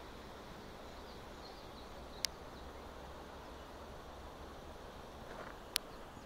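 Steady outdoor hiss with a few faint, high bird chirps, broken by two sharp clicks, one about two seconds in and one near the end.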